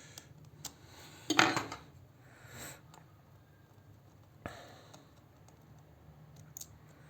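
Small clicks and scrapes of a hand tool and fingers on a tablet's plastic parts as its internal connectors are unplugged, with a louder scrape about a second and a half in and a sharp click a little past halfway.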